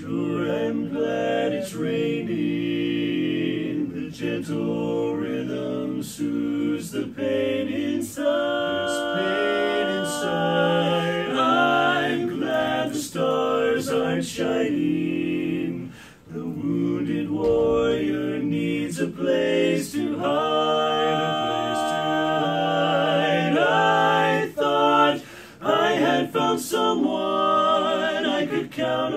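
Barbershop quartet of four men's voices singing a cappella in close harmony, with short breaks between phrases about halfway through and again near the end.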